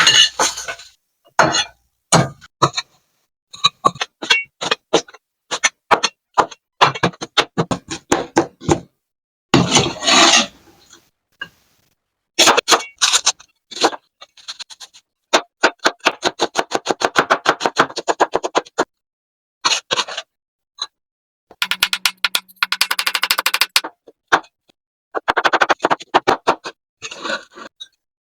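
Kitchen prep sounds in short edited clips separated by silence: knife taps and scrapes on a cutting board, with long runs of rapid, even chopping strokes in the middle.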